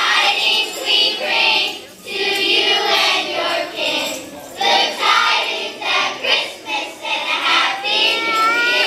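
A choir of children singing together, phrase by phrase with short breaths between lines.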